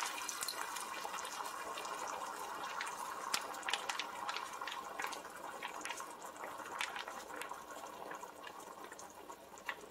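Tomato-based shakshuka sauce sizzling and popping in a hot pan over seared chicken strips, heating toward a simmer. It fades gradually.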